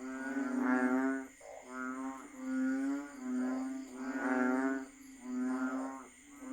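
Banded bullfrogs (Asian painted frogs) calling in chorus: a run of low, droning, nasal calls, each about half a second to a second long, following one after another with short gaps.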